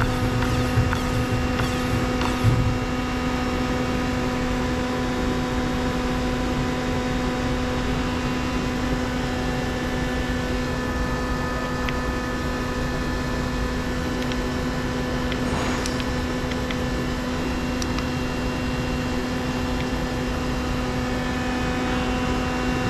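Steady electrical machine hum from a powered-up Hitachi Seiki CNC lathe, a mains-pitch drone with fan-like noise, and a few light clicks in the first couple of seconds.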